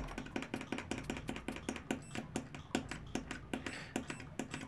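Metal multimeter probe tips tapping and scraping against each other, making rapid, irregular clicks several times a second.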